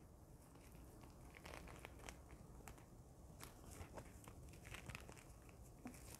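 Faint rustling and crinkling of a disposable surgical mask being folded and its ear loops knotted by hand, with a scatter of soft ticks.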